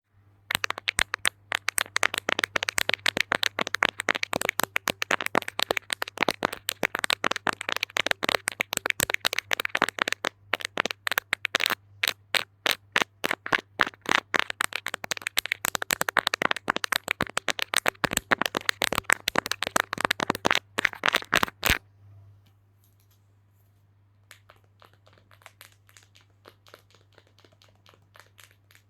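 Fast ASMR tapping and knocking with fingertips or nails on a hard object, many sharp knocks a second. It stops about 22 seconds in, and much softer tapping starts again about two seconds later.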